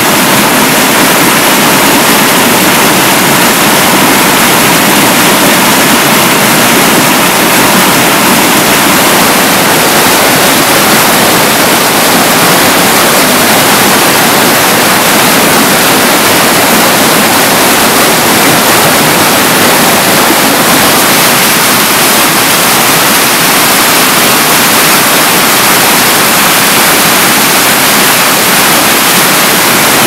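Mountain river cascading over mossy boulders: loud, steady rushing of white water.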